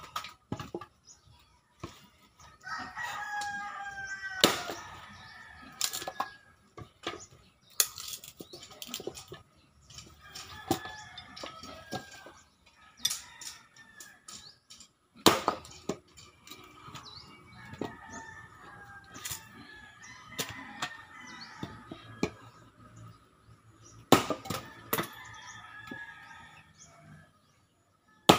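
An axe chopping and splitting firewood on a chopping block, with sharp chops every few seconds. Chickens and a rooster call in the background.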